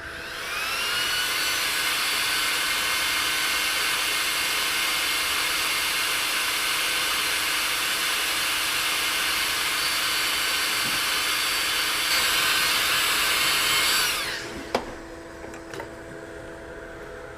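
Hot air rework station blowing: its fan spins up with a rising whine, then runs with a steady loud hiss for about fourteen seconds before cutting off and winding down. The newly placed BGA controller chip is being reheated so that it settles onto its pads.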